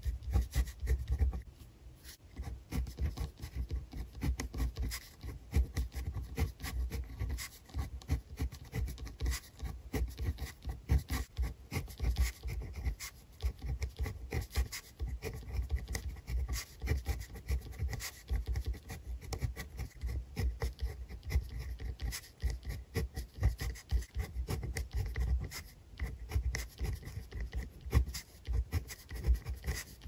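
A pen writing Chinese characters on lined paper, close-miked: quick, irregular scratching strokes, each with a soft low knock of the tip against the paper.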